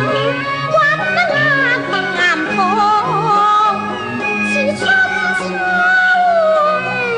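A woman singing a slow Chinese ballad with vibrato over an orchestral accompaniment with a steady bass line.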